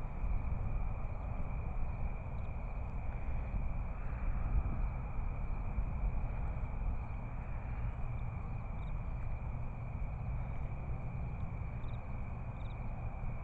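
Night ambience of insects trilling steadily in one unbroken high note, over a constant low rumble.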